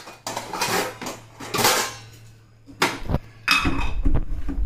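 Kitchen utensils and containers clattering and clinking as they are picked up and moved about on a counter, in several separate knocks that grow busier in the last second and a half. A faint steady low hum runs underneath.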